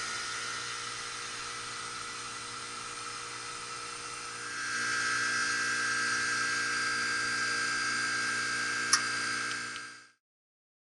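Heat pump outdoor unit running with its condenser fan unplugged, a steady high whine that gets louder about four seconds in as the unit is forced into defrost. A sharp click comes near the end, and the sound then cuts off suddenly.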